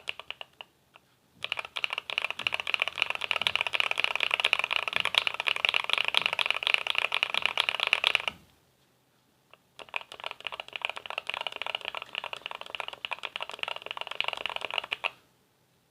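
Fast typing on a mechanical keyboard fitted with factory-lubed linear switches: two long runs of rapid key strokes with a short pause between them.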